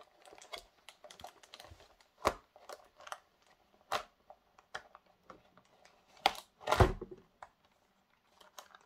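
Irregular clicks, taps and crinkles of a stiff clear plastic packaging shell and sleeve being pulled off a model locomotive, with a few sharper knocks, the loudest about seven seconds in.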